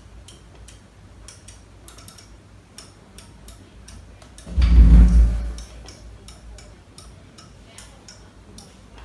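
Light, irregular clicks at a PLC test bench as a loose wire is touched to the input terminals of a PLC board, with one dull low thump about halfway through.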